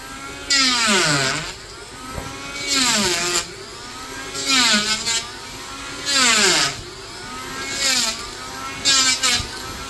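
Bosch electric hand planer running and taking six short cutting passes over wood. With each pass the motor's pitch drops under load and climbs back as the blades shave the wood.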